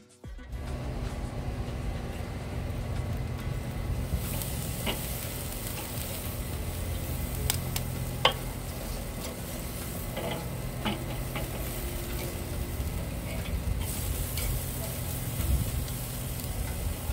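Thick bone-in ribeye steaks sizzling on the grate of a charcoal kettle grill, with a few sharp pops from the fat and coals, the loudest about halfway through, over a steady low hum.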